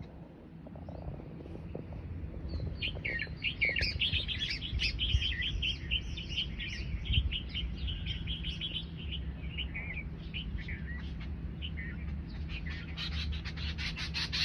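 Small birds chirping, many short high notes overlapping like a flock. The chirping thins around ten seconds in, then becomes dense and rapid near the end, over a steady low background rumble.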